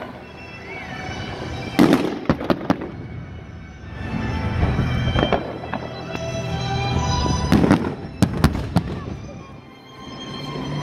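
Fireworks going off: sharp bangs in two clusters, about two seconds in and again from about seven and a half to nine seconds in, over steady music accompanying the display.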